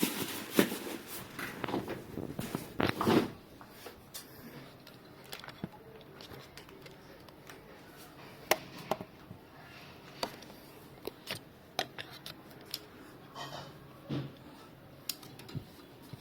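Handling noise from a new air conditioner's parts and cables: scattered clicks and light knocks. They come busily for the first three seconds or so, then only as occasional sharp single clicks.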